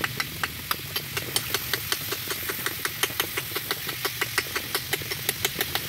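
Kitchen knife chopping rapidly and steadily, sharp taps about four to five a second, over a steady low hiss.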